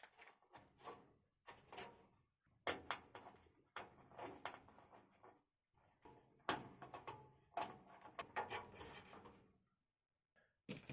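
Small clicks, light knocks and scrapes of metal parts being handled and fitted in a steel PC case. They come in short, irregular bursts with brief pauses between them.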